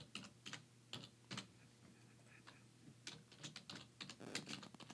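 Faint computer keyboard typing: a few scattered keystrokes, then a quicker run of key clicks from about three seconds in.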